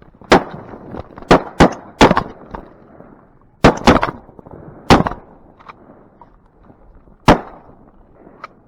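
Duck hunters' shotguns firing about eight shots in quick, uneven succession, each a sharp crack with a brief echo. A burst of four comes in the first two seconds, three more follow around four to five seconds in, and a last shot comes about seven seconds in.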